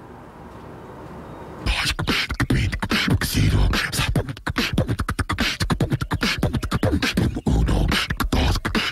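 Beatboxing: a fast run of mouth-made clicks and deep bass thumps with bits of voice, starting about two seconds in after a faint hiss.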